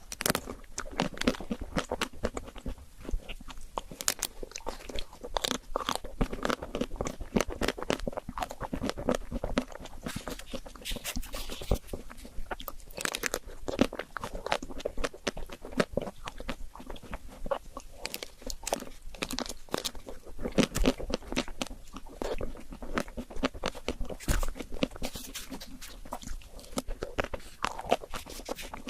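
Close-miked eating of crisp desserts: repeated crunchy bites and chewing, a dense run of sharp crackles all the way through.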